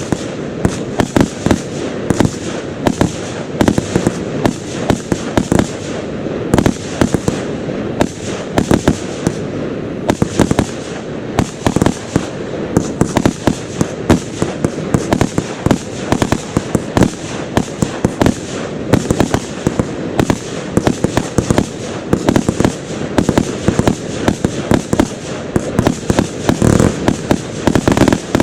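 Fireworks display: aerial fireworks going off in quick succession, several sharp bangs a second over a steady rumble.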